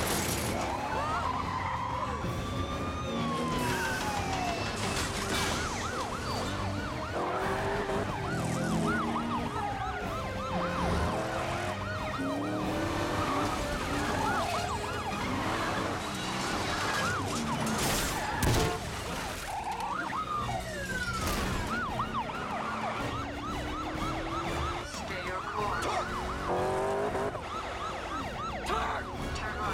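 Several police car sirens wailing and yelping over car engines and tyre noise, with a few sharp bangs, the loudest about eighteen seconds in.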